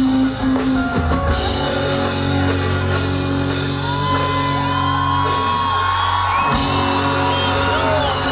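A live pop-rock band playing loud through a PA: drums, bass and guitar, with a held lead melody line that slides in pitch midway.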